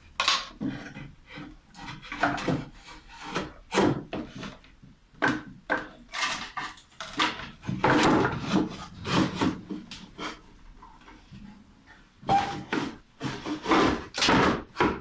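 Homemade vacuum cleaner parts knocked and scraped against each other as the motor section is fitted into its box: irregular knocks and rubbing, some sharp and loud.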